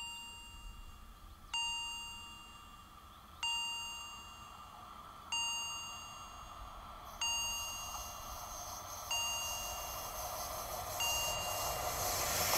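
Level crossing warning bell striking about once every two seconds, each ding ringing out and fading. An approaching train grows louder near the end.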